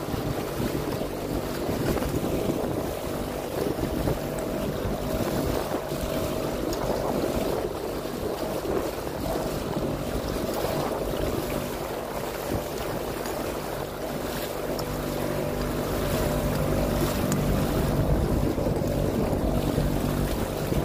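Small boat's motor running steadily under way, with water rushing past the hull and wind buffeting the microphone; slightly louder in the last few seconds.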